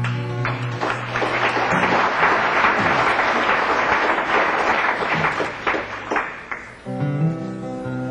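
Audience applauding for about six seconds as the last notes of a solo acoustic guitar ring out. Near the end the applause dies away and the acoustic guitar starts picking the introduction to the next song.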